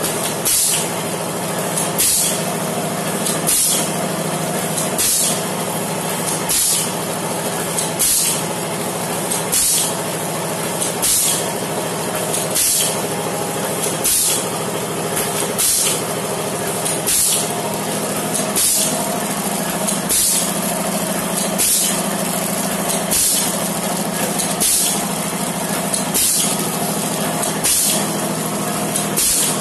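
Automatic vertical form-fill-seal pouch packing machine running, bagging masala powder into foil sachets: a steady mechanical hum with clicks, and a short hiss of air, its pneumatic cylinder working, about every one and a half seconds as each pouch is sealed, cut and dropped.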